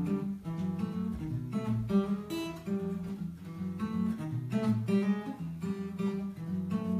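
Steel-string acoustic guitar played solo, picked chords and single notes in a steady, unhurried rhythm.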